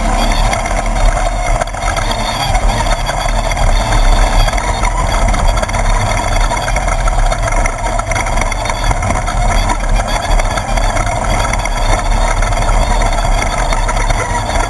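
A 1/2-1600 class desert race buggy's air-cooled 1600 cc Volkswagen engine running hard and steadily at speed, a loud, continuous drone with no gear changes or let-offs.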